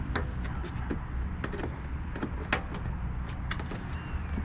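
Irregular sharp plastic clicks and knocks as push-in retainer clips and the plastic inner fender liner of a Chevy Silverado are pried and worked loose, over a steady low hum.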